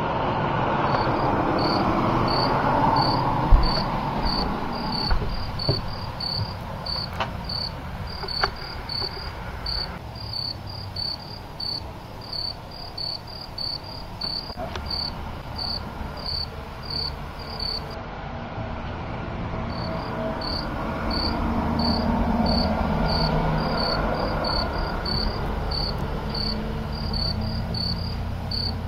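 Crickets chirping in a steady, regular pulse, about two to three chirps a second, pausing briefly about two thirds of the way through. Underneath is a low rushing background that swells at the start and again near the end, with a few knocks, the loudest a few seconds in.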